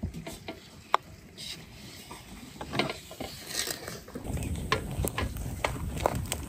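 Scattered light clicks and knocks as a large aluminium pot packed with lidded glass jars is handled and carried. From about four seconds in, the low rumble of a wood fire comes in, with sharp crackles.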